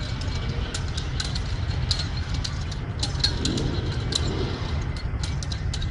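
Nunchaku being swung, its chain giving irregular light clicks, a few per second, over a steady low rumble.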